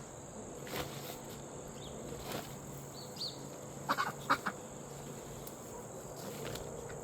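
Chickens clucking a few times, with short clucks, several of them close together about four seconds in.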